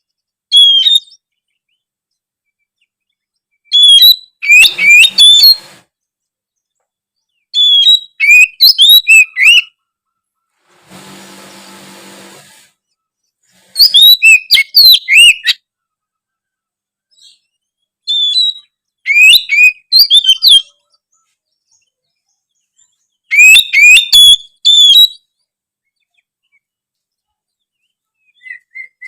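Oriental magpie-robin (kacer) singing in loud bursts of rapid, whistled, sharply bending notes, about six phrases of one to two seconds each with pauses of a few seconds between them.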